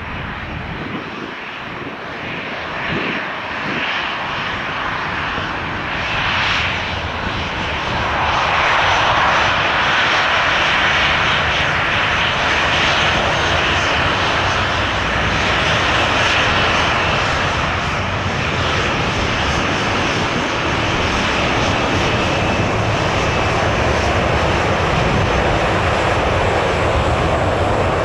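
Airliner engines running close by, a steady roar that grows louder about eight seconds in and then holds.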